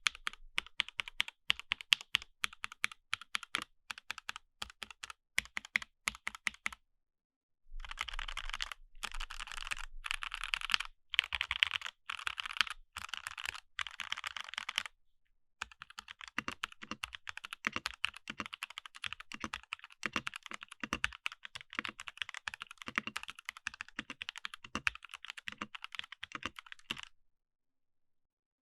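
Rapid typing on a mechanical keyboard fitted with Jwick Ultimate Black switches, a fast run of keystroke clacks. It comes in three takes cut apart by abrupt dead silences: about a second of silence near 7 s, a brief one near 15 s, and another near the end.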